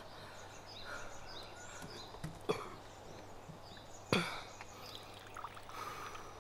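Small porcelain cups knocking against a wooden tabletop a few times, the loudest knock about four seconds in, then tea poured from a ceramic teapot into a cup near the end.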